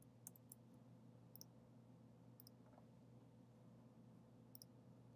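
Near silence with a handful of faint, short computer mouse clicks, spread irregularly through, over low room hum.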